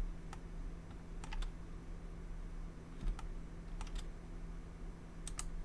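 Scattered clicks of a computer mouse and keyboard being worked, about nine in all, several in quick pairs, over a low steady hum.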